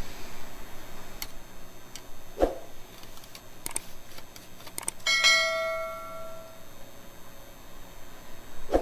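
Steel tools clinking against each other and the stainless-steel counter: a long cake knife and a long steel ruler. There are a few light clicks and two soft thumps, and about five seconds in one clear metallic ring that fades out over a second and a half.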